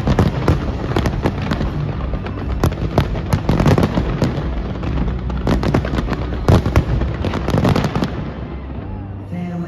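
Fireworks display: a dense, rapid run of bangs and crackling that thins out and dies away near the end.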